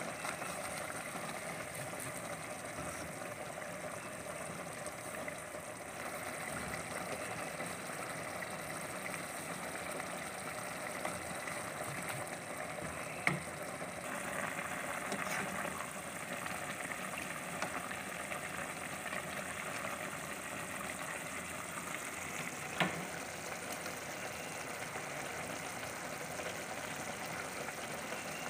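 Thick tomato bolognese sauce simmering and sizzling in a pot, a steady bubbling hiss. Two sharp knocks, likely the wooden spoon against the pot, about halfway and about three-quarters of the way through.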